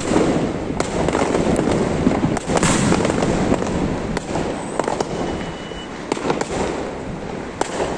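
Aerial firework shell (3-inch sky shot) bursting overhead: a dense rushing noise with sharp pops and bangs scattered through it, loudest in the first few seconds and easing off toward the end.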